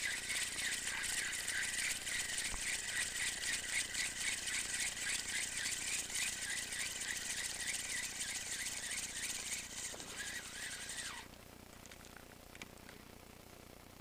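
Spinning reel being cranked to retrieve line, giving a fast rattling whir that slows and stops about eleven seconds in.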